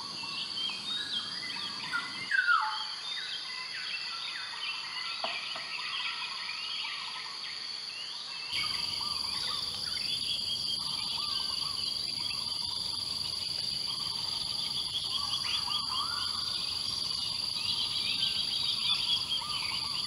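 Tropical forest morning ambience: a steady high-pitched insect drone under many short bird calls and chirps, the loudest a downward-sliding call about two seconds in. About eight seconds in, the background steps up to a fuller, steady insect drone with dense bird chatter.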